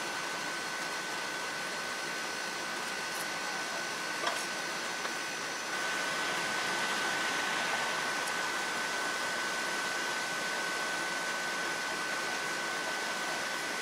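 Steady hiss with a thin, high, unchanging whine over it, growing slightly louder about six seconds in, with one faint click about four seconds in.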